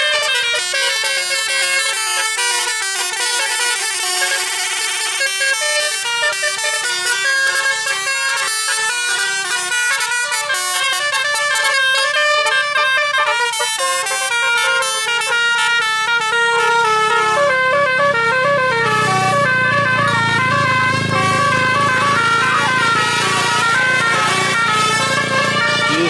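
Roof-mounted multi-trumpet telolet air horns playing a tune: several horn tones at once, stepping quickly from note to note without a break. Past the middle, a low rumble joins in under the horns.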